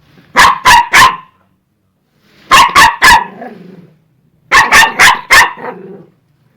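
Dog barking angrily in quick bursts: three barks, then three, then four, each burst about two seconds apart and trailing off into a short low rumble.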